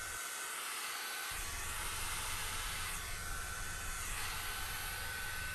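Hand-held hot air brush (hair dryer) running steadily, blowing air over wet alcohol ink: an even rushing hiss with a thin, steady whine.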